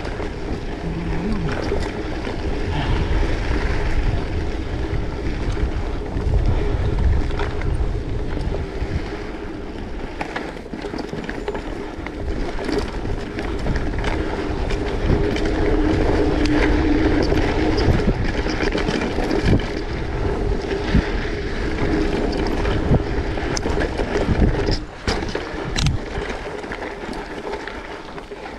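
Wind buffeting the microphone during a ride, a loud steady rumble with scattered knocks and clatters from the moving rig.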